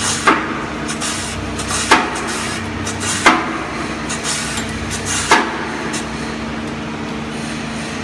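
Plastic film agglomerator running with a steady hum, with four sharp knocks in the first five seconds, the loudest a little past three seconds in.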